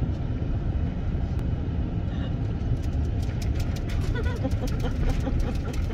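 Steady low road-and-engine rumble inside a moving pickup truck's cab. From about halfway through, a run of quick small clicks and wet sounds as a small dog licks at a plastic iced-coffee cup.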